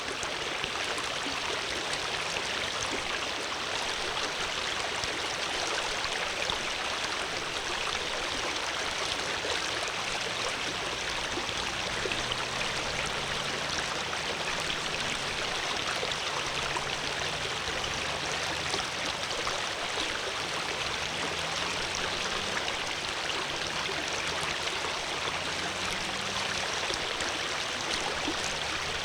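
Water flowing steadily in a stream: an even, unbroken rushing hiss.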